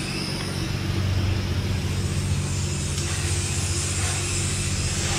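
Self-serve car wash pressure wand spraying water against a vehicle's wheel and fender, a hiss that grows stronger about three seconds in, over a steady low drone.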